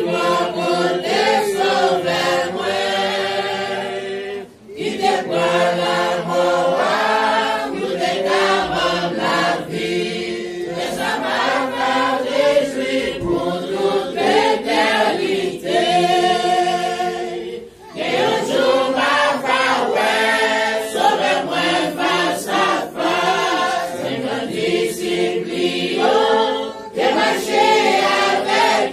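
A church congregation, mostly women's voices, singing a worship song together, with short breaks between lines about four and a half and eighteen seconds in.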